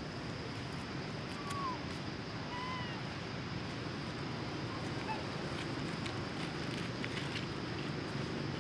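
Steady outdoor background noise with a faint, steady high whine, broken twice, a little over a second apart, by a short high animal call; the second call is arched in pitch with overtones.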